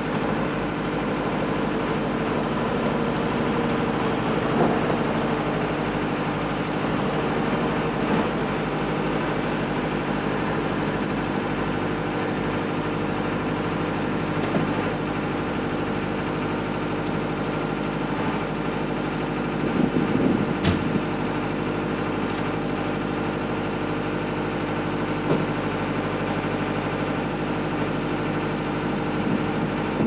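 Electric Wood-Mizer LT70 sawmill and its diesel generator running steadily: an even mechanical hum with several fixed tones. A brief clatter comes about twenty seconds in, with a few lighter knocks elsewhere.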